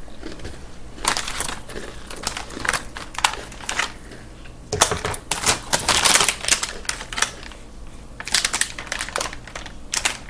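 Close-up crunching while chewing a Candy Corn Oreo cookie, in irregular clusters of sharp crackles. Near the end, the plastic Oreo package rustles as it is lifted to the mouth.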